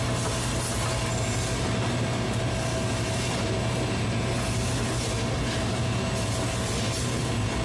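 Chicken-processing machinery and conveyors running steadily: a constant low hum with a thin steady tone and a wash of hiss.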